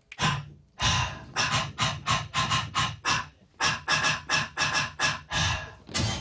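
A voice making short, punchy rhythmic beat sounds in quick succession, about three or four a second, in beatboxing style.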